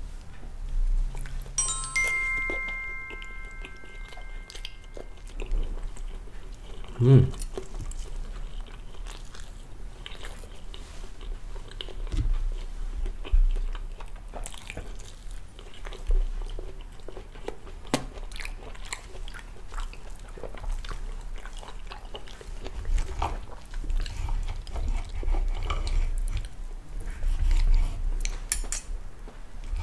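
Close-up eating sounds: a person chewing and biting soft pancake, with small clicks of a knife and fork. About two seconds in there is a short ringing chime, and about seven seconds in a brief hum-like vocal sound.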